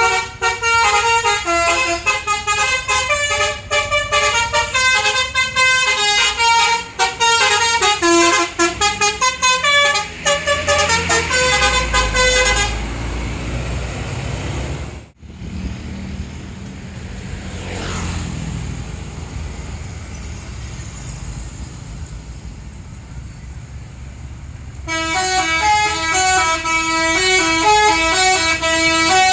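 Tour bus telolet musical horns play a quick stepped tune of several trumpet tones for about the first twelve seconds. Then the low running of a bus engine takes over, broken by a sudden brief dropout. Another horn tune starts near the end.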